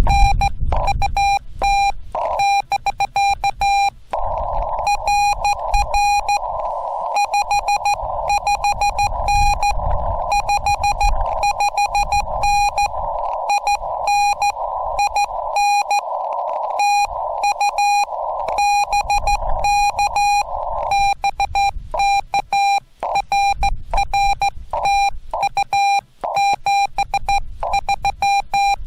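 Morse code from a Yaesu FT-891 transceiver: a steady high beep keyed on and off in dots and dashes. From about four seconds in until about twenty-one seconds, receiver hiss runs under the beeps.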